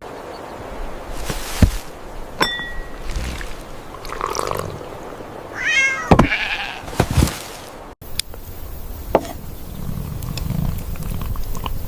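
A cat meowing once, about six seconds in, among scattered knocks and bumps.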